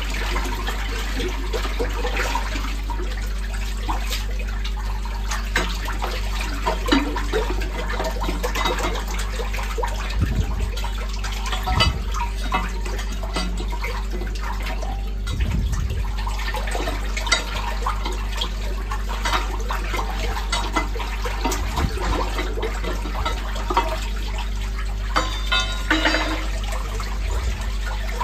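Backed-up sewage draining away through a manhole chamber once the blockage has cleared, the water swirling and gurgling, with repeated short splashes and knocks from a drain rod worked in the flow, over a steady low hum.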